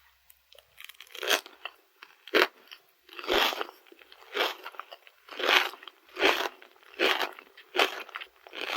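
Close-miked biting and chewing of a Dubai chocolate chapssaltteok, a chocolate-coated glutinous rice cake filled with pistachio spread and crisp kataifi pastry. The crunches come in a steady series of about one a second, starting about a second in.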